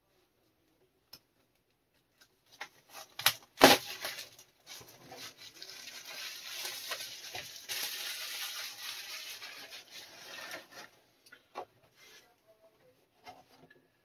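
Laser-cut wooden part sheets of a ship-model kit being handled: a few sharp clicks and one loud knock a few seconds in, then several seconds of rustling as the sheets and packaging are shuffled, ending in scattered light taps.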